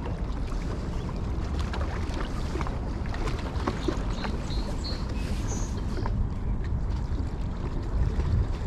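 Wind rumbling on the microphone, with scattered small clicks of handling. A few short high chirps come about four to five seconds in.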